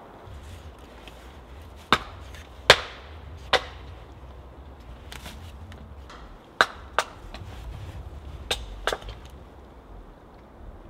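Wood knocking on wood as hazel poles are handled and fitted into the shelter frame: about seven sharp knocks at uneven intervals, the loudest about three seconds in.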